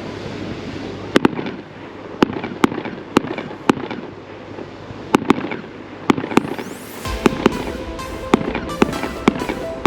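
Fireworks bursting in the air, a dozen or more sharp bangs at uneven intervals, over music that gains a fuller bass about seven seconds in.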